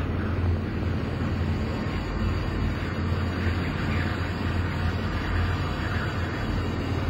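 Dark ambient soundscape: a steady deep rumble under a wind-like rushing noise that swells and fades every second or two.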